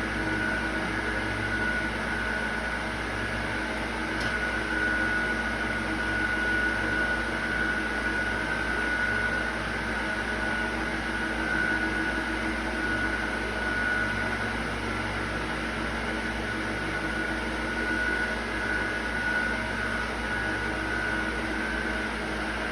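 Steady mechanical hum with a constant high-pitched whine, like a motor-driven fan or appliance running.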